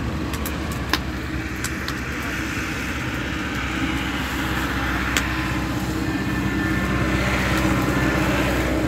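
A steady low engine-like hum with a few sharp crackles. Near the end a hissing, bubbling sound grows louder as the wide open pan of boiling sugarcane juice comes close.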